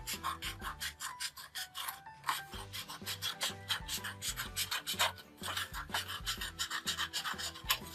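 Scissors cutting through cardboard in quick, repeated crunching strokes, over soft background music.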